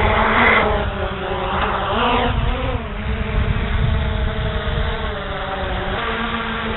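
Hubsan H501C quadcopter's motors and propellers whining, the pitch wavering briefly as the motors change speed in strong gusts, over low wind rumble on the microphone.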